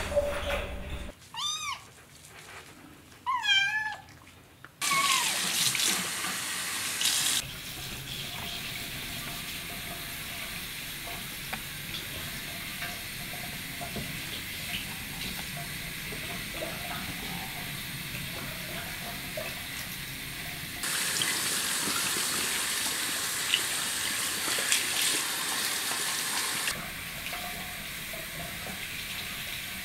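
Kittens mewing, a few high mews that rise and fall in the first few seconds. Then a kitchen faucet runs a steady stream of water over a small tabby kitten being rinsed in a sink, a continuous splashing hiss that grows louder for several seconds near the end.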